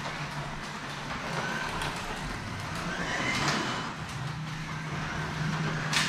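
A Carrera Digital 1/24-scale slot car's small electric motor whines as it laps the track, rising in pitch as it speeds up about three seconds in. There is a sharp click near the end.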